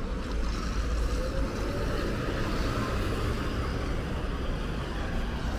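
Road traffic with the low, steady rumble of a motor vehicle's engine running nearby.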